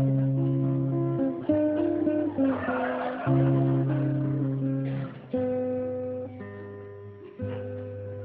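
Acoustic guitar strumming a sequence of chords, each held for a second or two before the next.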